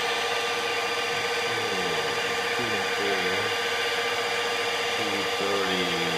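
Small benchtop milling machine running with a steady motor whine while its head is fed down by hand on the fine feed to set the cutting depth. Faint mechanical clicking comes from the feed mechanism.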